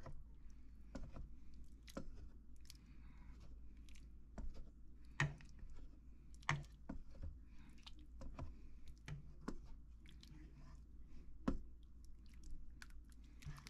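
Wet squishing of cooked meat and gizzards being broken up and stirred in a pot, with irregular knocks and scrapes of the utensil against the pot. A few knocks are louder, about five, six and a half and eleven and a half seconds in.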